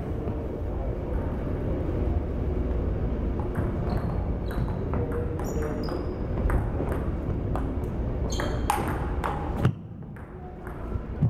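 Table tennis rally: the ball clicking off the paddles and bouncing on the table, a string of sharp ticks at an uneven pace.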